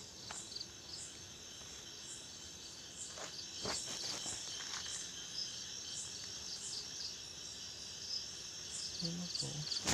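Crickets chirping in a steady, high-pitched chorus, with short trills recurring about once a second. There are a couple of faint knocks about three and a half seconds in.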